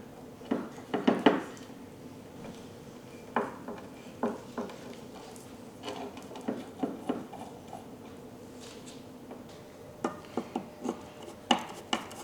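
Metal parts of a vintage Diamond Edge hand plane clinking and knocking as it is taken apart and the pieces are handled and set down, in several short clusters of taps.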